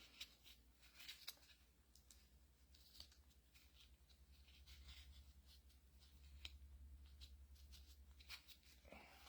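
Near silence, with faint scattered clicks and scrapes of hands working a cut O-ring into the groove of a hydraulic pump housing, over a steady low hum.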